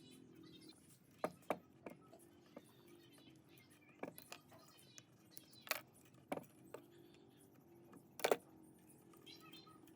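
Irregular sharp metallic clicks and clinks of metal parts and hand tools being handled, about ten in all, the loudest a double knock near the end, over a faint low hum.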